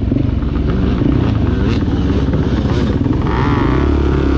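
Dirt bike engine running under the rider. Its note is uneven and rattling for about the first three seconds, then settles to a steady drone.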